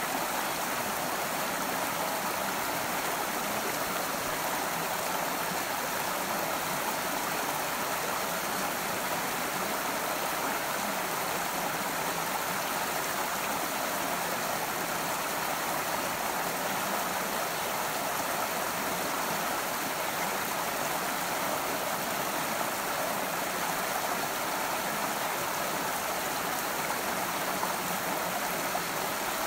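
A stream of water running steadily, one even rush with no breaks or changes.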